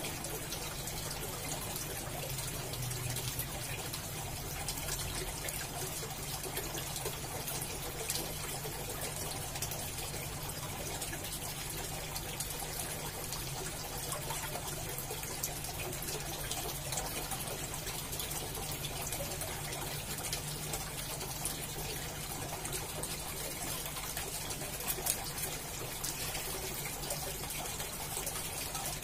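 Aquarium aeration: a steady stream of air bubbles from an airstone rising and breaking at the water surface with a continuous trickling, fizzing sound and small pops, over a steady low hum.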